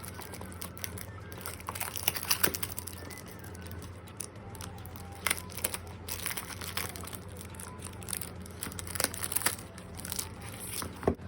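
Perfume packaging being unwrapped by hand: irregular crinkling and tearing with scattered sharp crackles, over a steady low hum.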